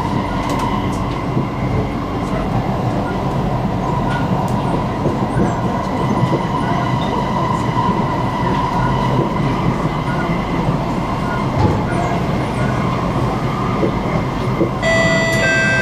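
Inside a moving Singapore MRT train: the steady rumble of wheels on rails and running gear, with a faint steady whine. Near the end, an electronic chime sounds that leads into an onboard announcement.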